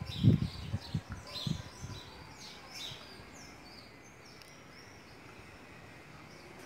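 Small birds chirping repeatedly, with a few dull low thumps in the first two seconds; after that only faint background.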